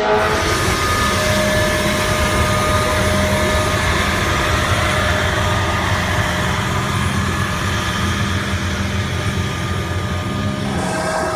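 A race car under way at near-constant speed: a steady engine note with a held whine over dense road and wind noise.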